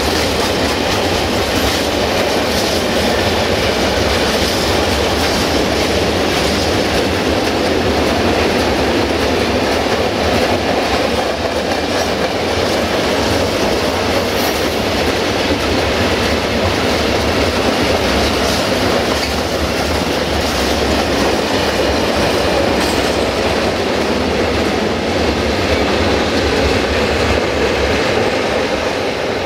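Freight train of tank wagons rolling past, a steady rumble of wheels on the rails.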